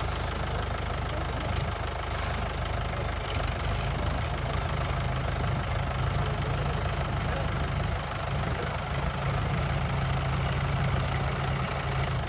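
Mahindra 575 DI tractor's four-cylinder diesel engine running steadily under load in low gear, with nobody at the wheel, as its rear tyres dig into the sandy slope.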